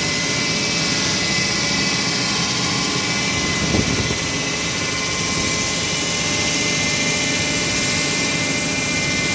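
LP32 hydraulic wall saw running, its blade cutting a reinforced concrete roof beam: a steady mechanical drone with a constant high whine. A brief low thump about four seconds in.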